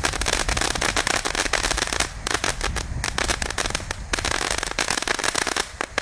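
Consumer firework crackling: a dense, rapid run of small sharp pops that thins briefly a few times.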